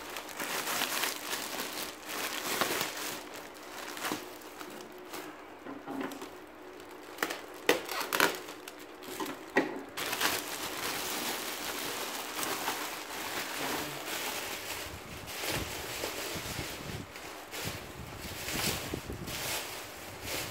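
Plastic packaging crinkling and rustling as it is handled and pulled open, with a few sharper crackles around the middle.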